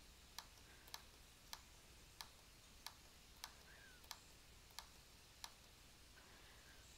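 A computer mouse clicking about nine times, at a rough rhythm of one click every two-thirds of a second, stopping a little past halfway. A faint low hum sits underneath.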